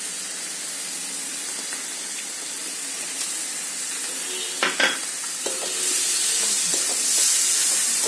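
Gongura chicken curry sizzling as it fries in a pan while it is stirred. A spoon knocks against the pan twice just under five seconds in, with lighter clicks after, and the sizzle grows louder about six seconds in.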